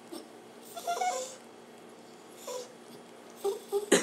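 Pet dog making short, wavering whine-like vocalizations while being petted, a few separate calls with a quicker cluster near the end. It is an odd, unusual noise: "the weirdest noise I've ever heard."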